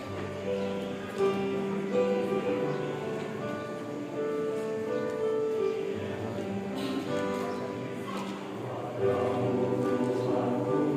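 Choir singing in parts, holding long notes that move from chord to chord.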